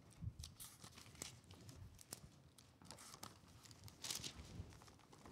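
Thin Bible pages being turned, a string of short, faint rustles as the book is leafed through to a passage; the loudest comes about four seconds in.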